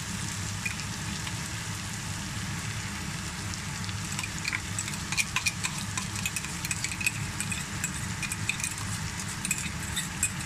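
Chopped onions frying in oil in a nonstick wok, sizzling with scattered crackles that get busier about halfway through, once ginger-garlic paste is in the pan, over a steady low hum.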